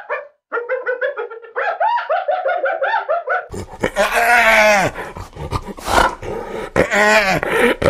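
Spotted hyena calling: a quick run of short pitched calls, about seven a second, then from about three and a half seconds in louder, harsher, drawn-out calls that fall in pitch.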